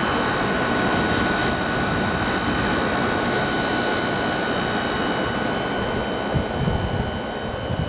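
Fedders 5000 BTU window air conditioner running, its fan blowing a steady rush of air with a steady high whine on top. A few low bumps come near the end.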